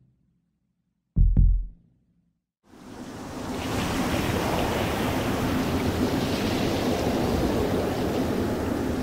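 A single deep booming thump about a second in, then a steady rushing noise like strong typhoon wind that fades in from about three seconds and holds.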